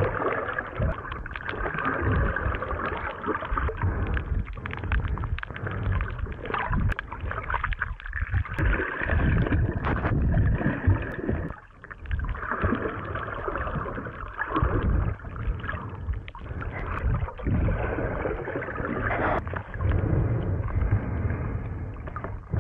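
Muffled water sloshing and gurgling picked up by a camera held underwater, with irregular low knocks and bumps.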